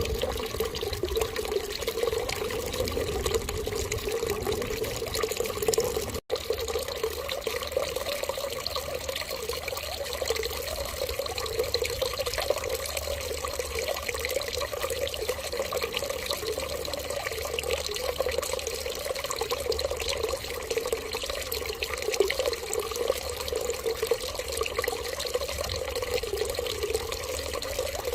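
Steady running water, like a tap left running into a sink, splashing evenly throughout. It cuts out for an instant about six seconds in.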